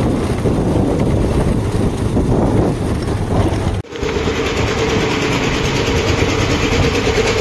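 Small two-wheeler engine running on the move, with heavy rumbling wind and road noise. About four seconds in the sound drops out for a moment, and a steady engine hum then carries on.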